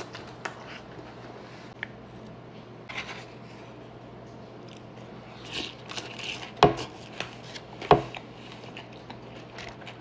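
Tableware sounds during a meal: utensils clicking and scraping against dishes, with two sharp, louder knocks about six and a half seconds in and again just over a second later.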